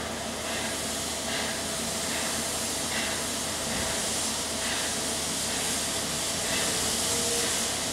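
Narrow-gauge steam locomotive approaching slowly, with a steady hiss of steam and faint chuffs about once a second.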